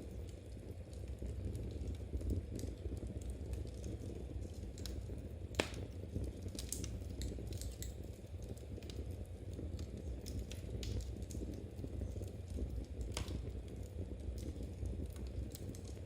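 Knitting by a wood fire: soft irregular clicks of knitting needles and crackles from the fire over a steady low rumble, with one sharper pop about five and a half seconds in.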